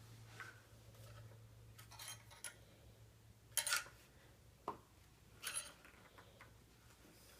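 Rifle's metal parts scraping and clicking against an Archangel stock as they are pressed and worked into place by hand, in a few short bursts with one sharp click midway, over a low steady hum.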